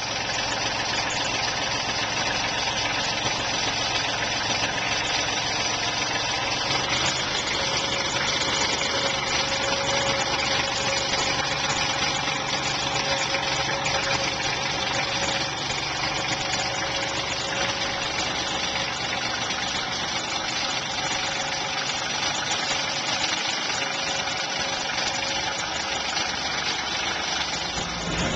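An engine running steadily at an unchanging speed.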